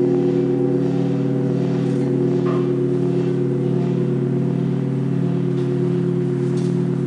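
Large Orthodox church bells humming on after being struck, several deep tones held together with a slow wavering beat, and a few faint higher taps.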